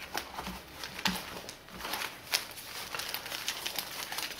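Crinkling and rustling of a sealed abdominal-pad packet being drawn out of a nylon pouch pocket and handled, in scattered short crackles.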